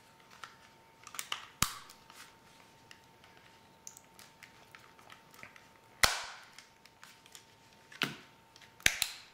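Sharp plastic and metal clicks and snaps of a Fujifilm E550 compact camera's case and back panel being pressed together by hand as the parts seat. The clicks are scattered, the loudest about six seconds in, with a quick pair near the end.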